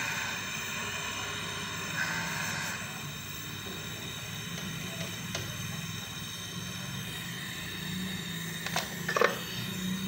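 Hand-held gas brazing torch burning with a steady hiss while a copper refrigerant line on a refrigerator compressor is brazed, with a few sharp clicks and knocks near the end.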